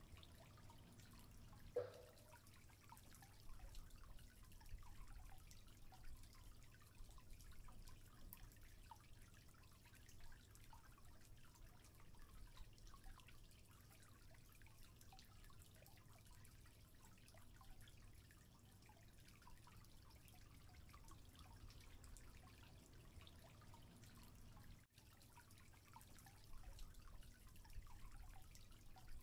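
Near silence: faint dripping and trickling of aquarium water over a low steady hum, with a single short tap about two seconds in.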